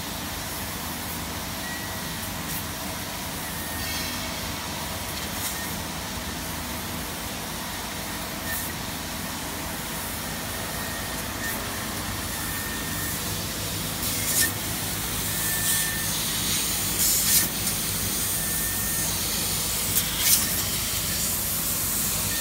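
A 750 W CNC fiber laser cutting machine running while it cuts carbon steel sheet: a steady machinery hum and hiss with short faint whines recurring. From about two-thirds of the way in, several short sharp hissing bursts come from the cutting.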